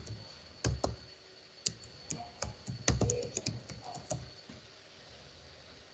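Typing on a computer keyboard: a run of irregular keystrokes that stops about four seconds in.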